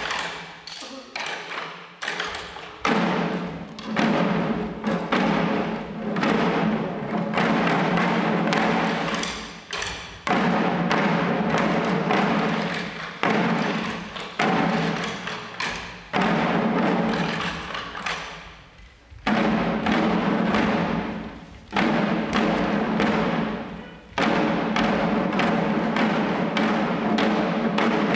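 Shishi-odori deer dancers beating the small drums hung at their chests in fast, dense strikes, with a steady pitched sound underneath. The drumming drops away briefly several times and picks up again.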